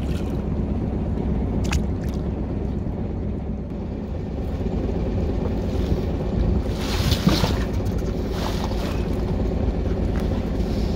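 A boat engine running steadily with a low hum, with a few brief hissing sounds about seven and eight and a half seconds in.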